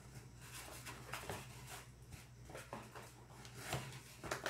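Silicone whisk stirring thick cake batter in a plastic bowl: soft, irregular rubbing and scraping strokes against the bowl.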